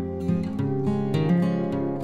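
Background music of quickly changing plucked and strummed notes.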